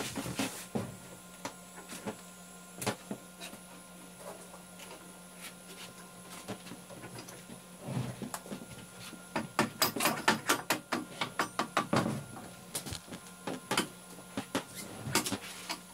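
Small metallic clicks and taps of hand tools working on the spindle hardware inside a Laguna lathe's headstock, with a quick run of rapid clicks, about four or five a second, roughly two-thirds of the way in.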